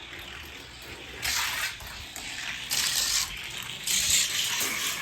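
Die-cast toy car rolling down a gravity race track, its wheels making a rushing, hissing whir that surges three times.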